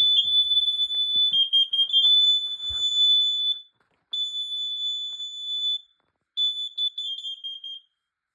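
Two home alarms, a Kidde among them, sounding their high piezo test tones together, at two slightly different pitches that overlap. One long sounding of about three and a half seconds, then two shorter ones; the last stutters before it stops near the end.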